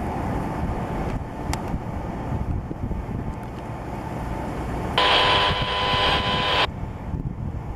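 Wind buffeting the microphone over a low rumble. About five seconds in, a loud steady tone of several pitches sounds for under two seconds, starting and stopping abruptly.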